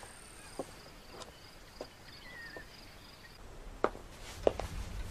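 Faint night ambience of crickets chirping in a steady high trill, with a few soft ticks. Near the end the crickets stop and footsteps sound on a wooden floor.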